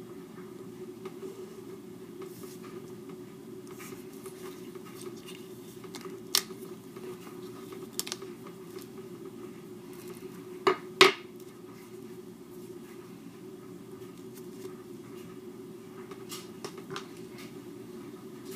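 Sharp clicks and taps of craft tools and foam pieces being handled on a cutting mat, over a steady low background hum. The loudest is a quick pair of clicks about eleven seconds in, with single clicks a few seconds before and faint ticks scattered elsewhere.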